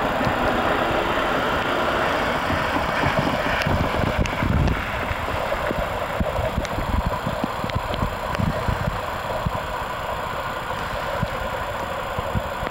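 Steady hiss of a rain-wet city street, with the rumble of a Keikyu 1500-series electric train at the level crossing and irregular low buffeting on the microphone, heaviest a few seconds in.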